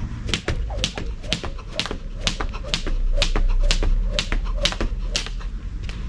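Skipping rope slapping the ground in a steady rhythm, about two slaps a second.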